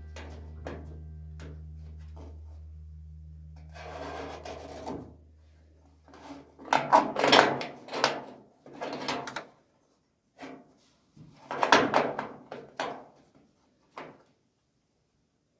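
Steel repair section scraping and rubbing against the car wing's drip rail in several short, rough scrapes, loudest about seven and twelve seconds in. Before them, a low steady hum fades out by about six seconds in.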